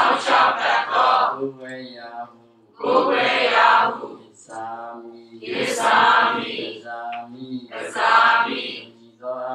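A group of voices chanting a Buddhist recitation together in unison, in short phrases of about a second separated by brief pauses.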